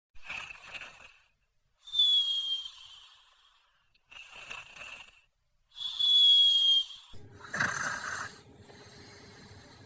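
Exaggerated cartoon-style snoring from a sleeping child. Twice, a breathy inhale is followed by a whistling exhale whose pitch falls slightly. About seven seconds in comes a louder, rougher snore over a steady low hum.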